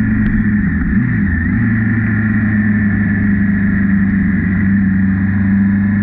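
Honda CB650R's inline-four engine running at steady revs while riding, with a brief dip and recovery in its note about a second in.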